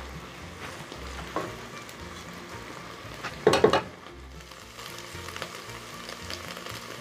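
Okra, meat and garlic sizzling as they fry in oil in a large pot, the okra being fried until its moisture cooks off. One brief, louder clatter comes about three and a half seconds in.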